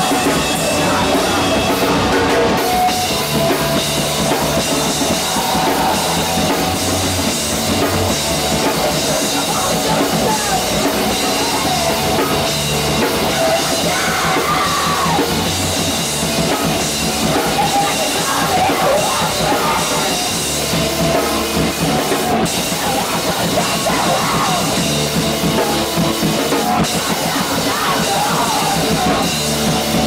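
Live rock band playing loud and steadily: drum kit with cymbals and guitar, heard close to the drums.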